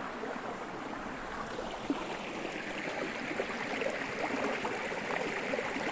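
Small rain-swollen forest creek running, a steady rushing babble of water over stones.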